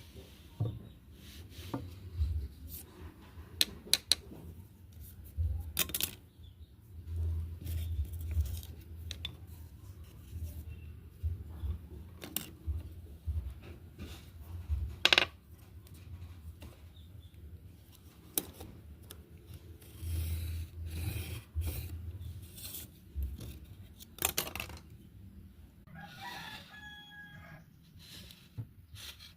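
Irregular knocks, clicks and rubbing from wood and hand tools being worked, with a few sharper taps and low thumps. Near the end comes one long animal call with stepped pitches.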